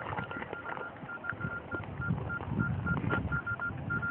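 Electronic beeper sounding a rapid string of short, same-pitched beeps at irregular intervals, over a low background murmur.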